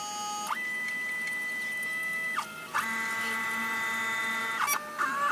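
Prusa i3 3D printer's stepper motors whining as the axes move the print head and bed into place at the start of a print. A steady tone jumps higher about half a second in, breaks off, and returns as a cluster of several tones. A click comes near the end, followed by wavering tones.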